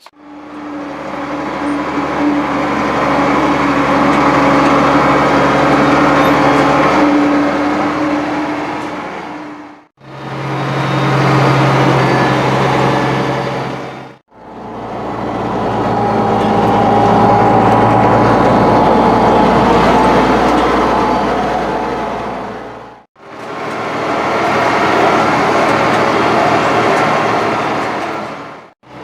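An engine running steadily, heard in four separate stretches that each fade in and out, with brief silent gaps between them.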